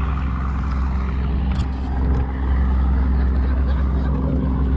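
A boat engine running steadily at idle, a constant low drone that does not change in pitch.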